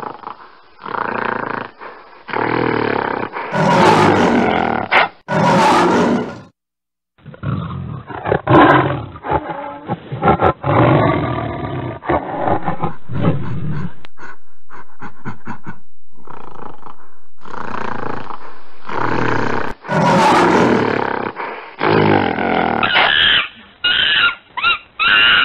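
A string of wild-animal sound effects, mainly big cats roaring and growling, one call after another with short gaps. A steady stretch runs through the middle, and near the end come several short, shrill calls in quick succession.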